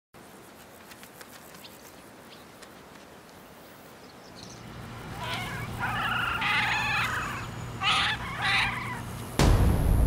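A sudden heavy explosion about nine and a half seconds in, rumbling on after the blast. Before it there is a low steady drone and a few short high calls.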